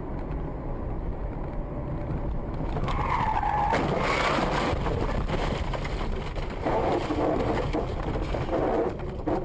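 A car's road and engine noise, heard from inside the car, with a short tyre squeal about three seconds in that falls in pitch as the car skids and runs off the road onto the grass verge.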